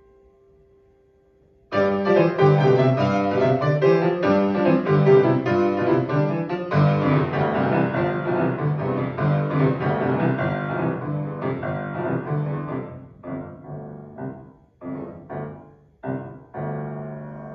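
Grand piano playing a classical piece: a held note fades nearly to silence, then about two seconds in a loud, dense run of fast notes begins. After about thirteen seconds it breaks into separate struck chords with short pauses, ending on a held chord.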